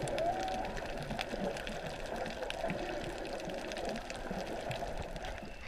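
Underwater sound picked up by an action camera in its waterproof housing while snorkelling: a muffled, steady water rush with many faint crackling clicks.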